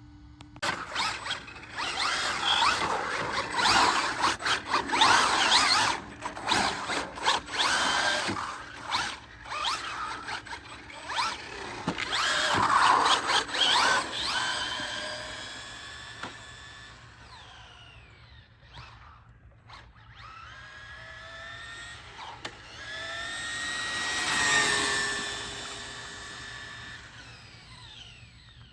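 Radio-controlled Traxxas Rally Slash with a Velineon brushless motor running: bursts of rough scrabbling for the first half, then the motor's electric whine rising and falling in pitch as the car speeds up and slows, loudest about 24 seconds in.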